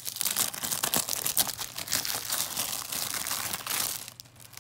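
Plastic shrink wrap being torn and peeled off a DVD case, a dense crinkling made of many small crackles that dies down about four seconds in.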